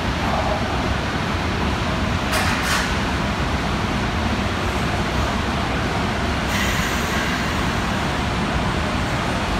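Kintetsu 7000 series subway train pulling into an underground platform: a steady rumble of wheels on rail. A brief high hiss comes about two and a half seconds in, and a higher-pitched sound joins from about six and a half seconds as the train nears.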